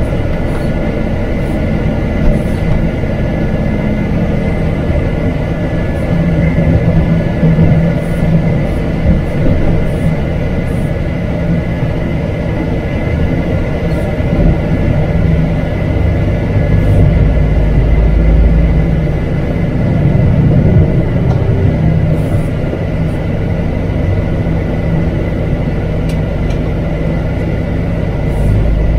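MAN TGX truck's diesel engine running on the move, a steady low drone mixed with road rumble and a faint thin whine above it. It swells louder for a few seconds about two-thirds of the way through, then settles again.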